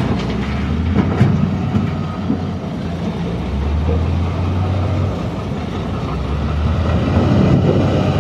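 A heavy construction machine's diesel engine running steadily, with a sharp metallic knock about a second in and growing louder near the end.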